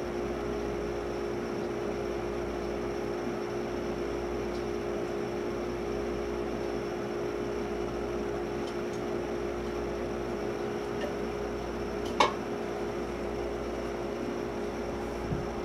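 Steady mechanical hum with a constant low tone, broken once by a sharp click about twelve seconds in.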